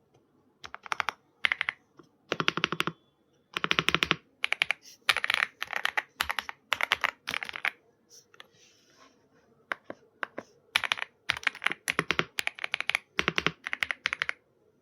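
Typing on a gasket-mounted Weikav WK75 mechanical keyboard with Coconut Latte switches: bursts of rapid keystrokes separated by short pauses, with a longer pause about two-thirds through.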